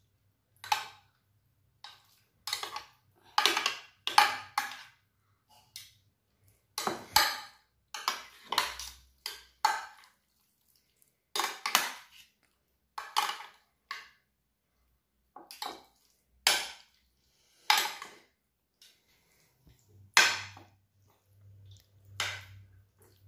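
A spoon scraping and clinking against a mixing bowl in irregular strokes, roughly one a second, as a thick mixture of fried potatoes, meat and béchamel is stirred together.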